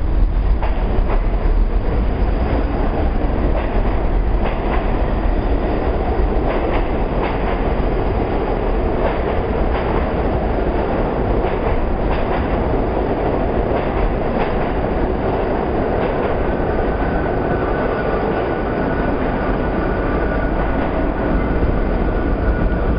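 R68 subway train pulling out of the station alongside the platform: a steady rumble with wheels clicking over the rail joints. About two-thirds of the way through, a high steady whine sets in.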